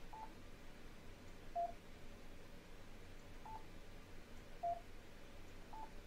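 Yaesu FTM-500DR control head giving short key beeps, five in all, about one every second or so, alternating between a higher and a slightly lower tone, as its V/M key is pressed to switch between VFO and memory mode.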